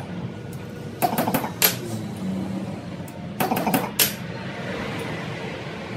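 Metal clinks and taps in two short clusters, about a second in and again about three and a half seconds in, from metal parts or tools being handled during heat-guard fabrication.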